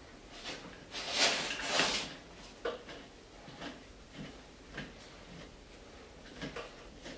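Metal scraping followed by several short clunks as a heavy rear PTO gear case is shifted against a garden tractor's transaxle and its mounting bolts are started by hand.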